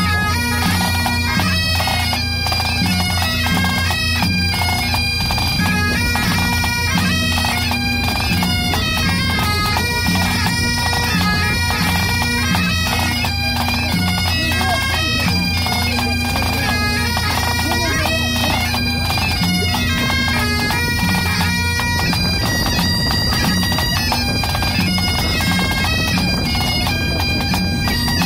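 A pipe band playing: Great Highland bagpipes carry a tune over their steady drones, with drums beating along.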